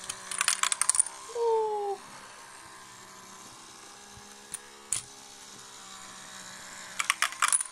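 Plastic counters dropped into a toy Tipping Point coin-pusher game, clattering down through the pegs in two quick rattling bursts, over the steady hum of the game's motorized pushing shelf.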